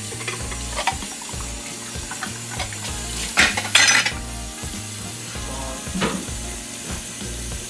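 Kitchen tap running into a stainless steel sink while dishes are rinsed, with bowls and utensils clattering, loudest about three and a half seconds in and again briefly near six seconds.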